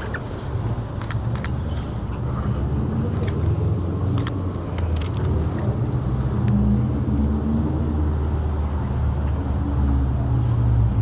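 City street traffic: cars driving through an intersection, a steady engine rumble that grows louder over the second half. A few sharp clicks come in the first half.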